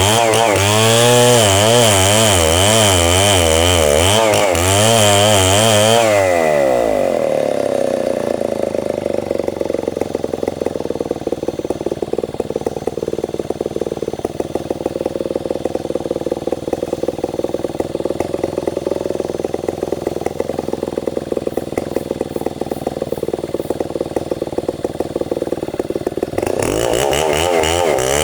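Stihl 070 two-stroke chainsaw running at high speed for about six seconds, its pitch wavering up and down as it cuts red meranti. It then drops to a steady, rapidly ticking idle and speeds up again near the end.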